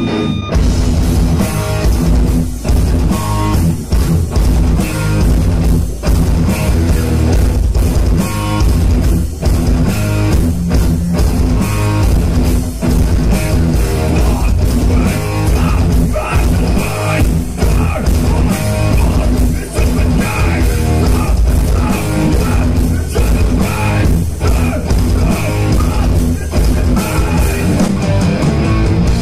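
Rock band playing loud heavy rock: electric guitars, bass guitar and a drum kit, with the full band coming in at once right at the start.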